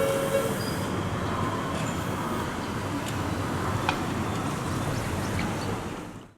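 Railway level-crossing alarm sounding its repeating electronic tones, stopping about half a second in. A steady train rumble carries on after it and fades out near the end.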